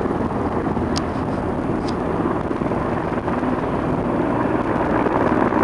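Steady drone of a low-flying firefighting airplane's engines over a wildfire, mixed with wind on the microphone.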